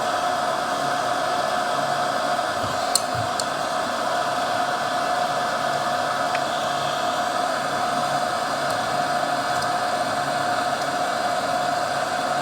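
Hot-air rework blower running steadily, an even whoosh with a held whine, used to desolder a CPU from a circuit board. A couple of faint clicks come about three seconds in.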